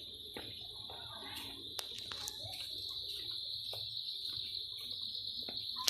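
Steady high-pitched drone of insects, with scattered light clicks and taps over it.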